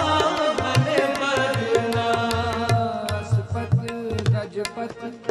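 Shabad kirtan: harmoniums holding sustained notes under a steady tabla rhythm of deep bass strokes and sharp taps. A sung line trails off in the first second or so.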